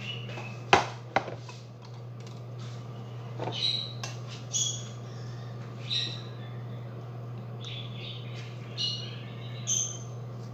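Two sharp knocks of utensils against cookware about a second in, then short, high squeaks every second or two as meat sauce is spooned from a pot into a glass baking dish. A steady low hum runs underneath.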